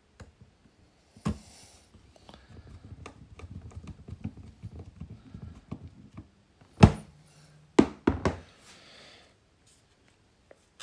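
Small plastic parts of a car's multi-function display unit being handled on a work surface: a sharp knock about a second in, a stretch of small clicks and rattles, then several louder knocks a couple of seconds before the end.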